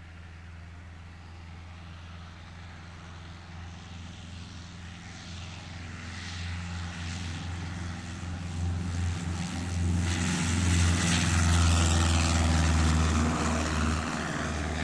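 Cessna 152's four-cylinder Lycoming engine and propeller at full takeoff power as the plane rolls down the runway and lifts off, a steady drone growing louder as it approaches and passes close by, loudest about ten to thirteen seconds in.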